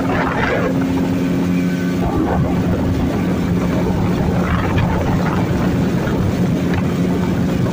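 Engine of a small river boat running steadily under way, a constant hum with the rush of water and wind over it.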